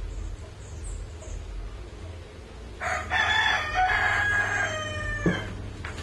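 A rooster crowing once, a single call of about two and a half seconds beginning about halfway in and falling in pitch at its end. A short knock comes just as the crow ends, over a steady low hum.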